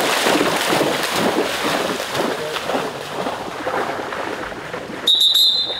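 A retriever bounding and splashing through deep flood water to fetch a downed duck, loudest at the start and easing off. About five seconds in, a short, high, steady whistle sounds.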